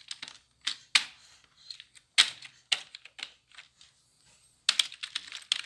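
Computer keyboard keys pressed unevenly: single clacks a fraction of a second apart, a short lull, then a quick flurry of many key presses near the end.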